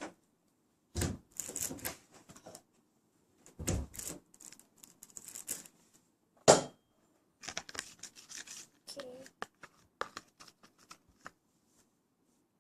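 Objects being handled and set down: irregular rustling, scraping and clicking, with one sharp knock about six and a half seconds in.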